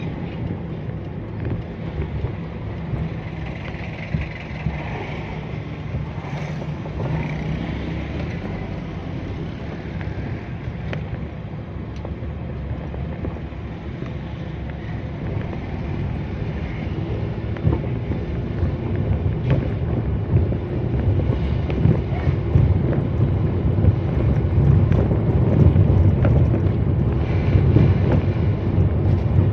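Engine and road noise from a moving vehicle, with wind rumbling on the microphone. The rumble grows louder over the last ten seconds or so.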